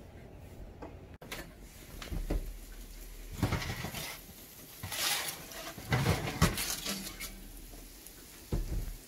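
A foil-lined metal baking sheet being pulled out of an oven on its wire rack: a run of short metallic clatters and scrapes, the loudest a little past halfway.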